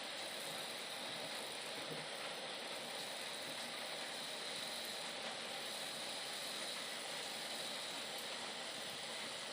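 Steady hiss of sugar syrup boiling on a stove, with rasgullas cooking in it.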